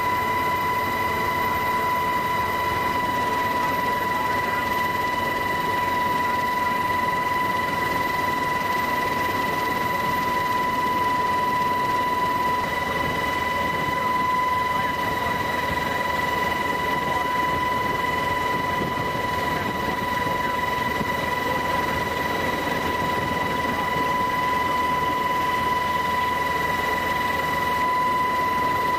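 Steady engine and airflow noise of the aircraft the aerial footage is shot from, with a constant high-pitched whine.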